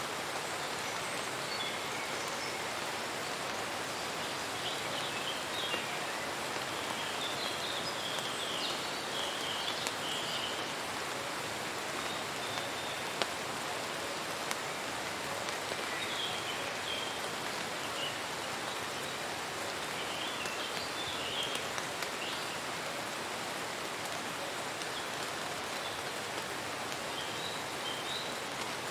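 Steady rain falling, an even hiss with a few sharp drop ticks, and brief high chirps now and then.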